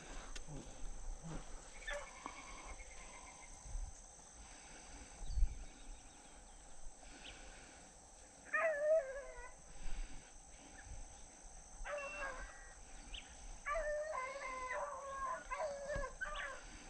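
Faint baying of beagles running a rabbit's track, the calls coming in short bouts about eight and twelve seconds in and more often over the last few seconds. A single low thump about five seconds in.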